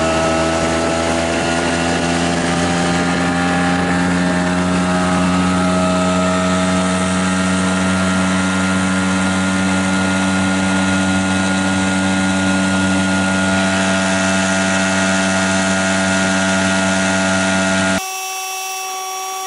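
Tohatsu 5 hp outboard motor running steadily at speed, pushing a small inflatable boat, with the rush of water and wind; its pitch rises slightly over the first few seconds and then holds. Near the end it gives way for a couple of seconds to a quieter, thinner engine tone.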